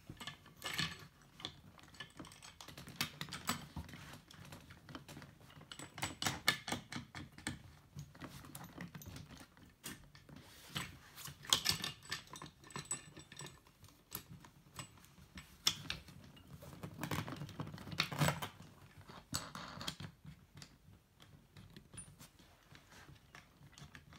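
Deck board with two clam cleats being handled and fitted onto a folding kayak's deck: irregular small clicks, taps and rattles of hard hardware, some in quick runs.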